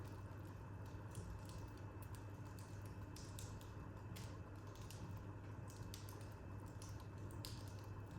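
Wood fire crackling in a corner fireplace: irregular small snaps and pops, some louder than others, over a low steady hum.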